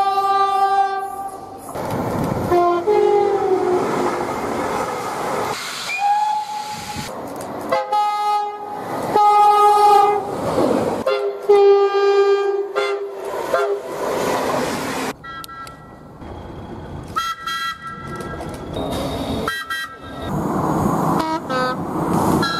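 A string of British train horn blasts from several different trains, mostly held notes of one to two seconds, with a higher-pitched horn near the end. Between the blasts comes the rushing noise of trains running past.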